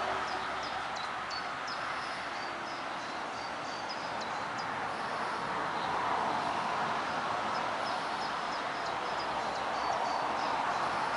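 Small birds chirping again and again, short high calls over a steady rushing background noise.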